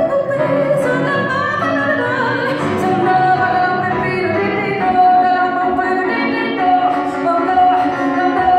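A female jazz singer with grand piano accompaniment, her voice holding long notes, with a wavering run of quick notes about two seconds in.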